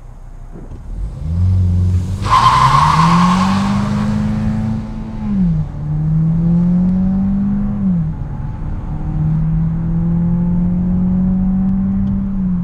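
Volkswagen Golf 1.5 eTSI's four-cylinder turbo petrol engine accelerating flat out from a standstill with traction control off. The revs climb through three gears, with quick DSG upshifts about five and a half and eight seconds in, and drop as it lifts off near the end. The front tyres screech briefly just after pulling away.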